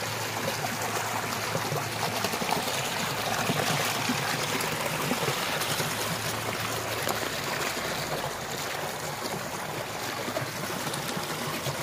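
Water rushing out of a concrete culvert pipe and splashing into a ditch in a steady, unbroken flow.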